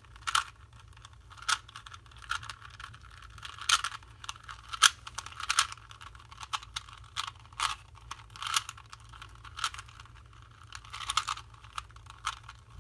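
Plastic Rubik's Cube layers being twisted by hand: a string of irregular clacks, about one or two a second.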